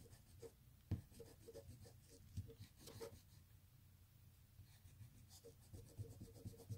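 Pencil drawing on a sheet of paper: faint, quick scratching strokes, with a few sharper taps.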